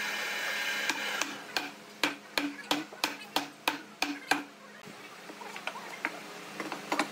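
A hammer knocks about a dozen times, roughly three blows a second, on the top edge of an upright panel of reclaimed wooden boards, each blow ringing briefly in the wood. A steady machine hum stops about a second in.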